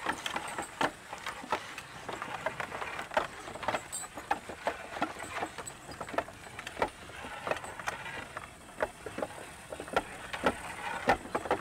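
A draught horse pulling a wooden cart loaded with logs along a dirt track: a steady run of irregular knocks and clicks from the hooves, the wooden wheels and the shifting load.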